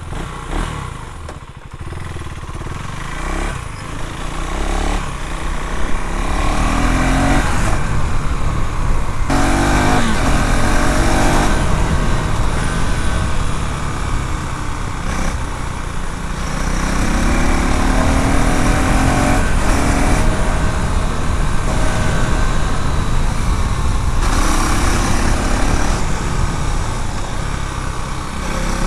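2024 KTM Duke 390's single-cylinder engine and exhaust pulling away and accelerating up through the gears. The pitch climbs in each gear and drops sharply at each shift, several times over. The engine is quieter for the first few seconds, then runs louder under load.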